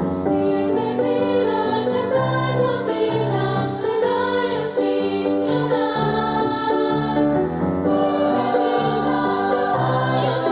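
Children's and youth mariachi ensemble performing a song, many voices singing together over the band.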